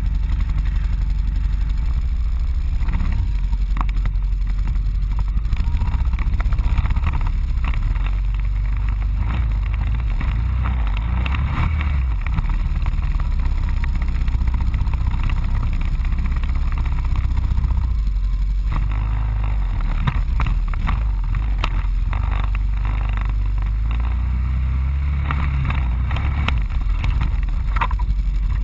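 ATV engine running at low speed as it crawls over a rough trail, with frequent short knocks and rattles from the vehicle jolting over bumps.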